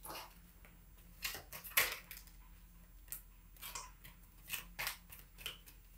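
Tarot cards being shuffled and handled: quiet, irregular short flicks and swishes of card against card, the loudest a little under two seconds in.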